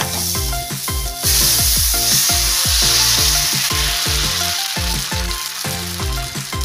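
Dosa batter sizzling on a hot tawa as a ladle spreads it in circles. The hiss swells about a second in. Background music with a steady beat plays throughout.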